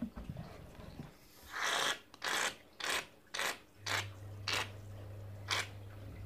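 Aerosol can of shaving cream hissing in a run of about eight short sputtering bursts, roughly two a second, as foam is pushed out of it.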